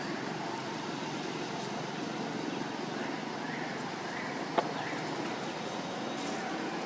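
Steady outdoor background noise, with a few faint short rising chirps near the middle and a single sharp click about four and a half seconds in.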